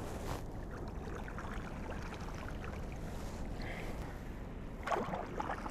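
Kayak paddle strokes in calm water: the blades dipping and pulling with light splashes and drips over a low steady rumble, a little louder about five seconds in.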